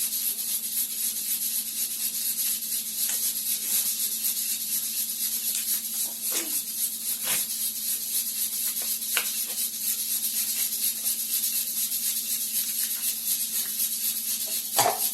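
Steady background hiss with a low hum, and a few scattered clicks and crackles of plastic as a frozen coconut ice packet is opened.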